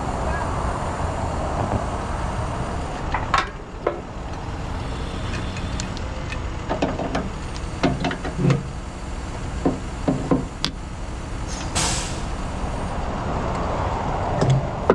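Diesel truck engine running steadily, with a series of knocks and clunks and, about twelve seconds in, a short hiss of released air from the truck's air system.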